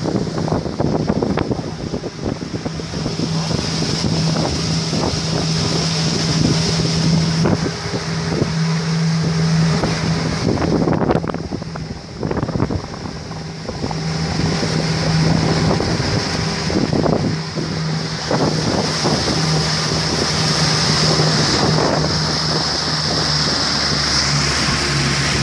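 Outboard motor of a small motorboat running steadily at cruising speed with a constant low hum, over the rushing hiss of the wake and spray. Wind buffets the microphone throughout.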